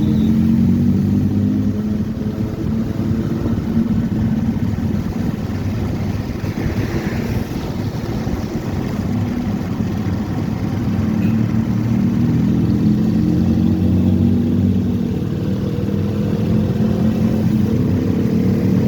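Motorcycle engine running on the move: its pitch dips during the first few seconds, then rises steadily through the second half as it speeds up, over a rough rushing noise.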